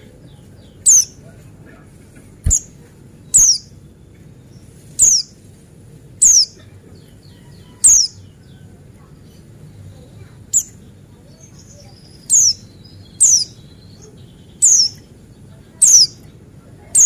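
A pleci buxtoni white-eye calling: a series of short, very high notes, each sliding quickly downward, repeated about every second or so, the sharp 'nembak' calls used to lure other white-eyes into singing.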